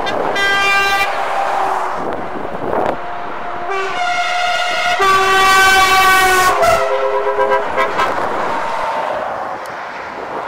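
Truck air horns sounding as heavy lorries pass on a motorway: a short chord-like blast about half a second in, then a longer run of horn notes that step in pitch from about four to eight seconds in. Under the horns, the passing trucks' engines and tyres make a steady rushing noise.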